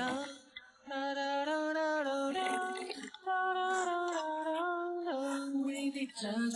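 A woman's voice singing a slow melody in long held notes, stepping between pitches, with a short break about three seconds in.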